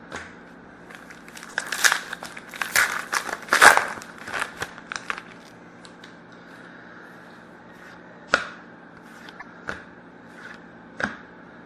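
Hockey card pack wrapper crinkling and tearing open for a few seconds, then a few separate sharp taps as the cards are handled.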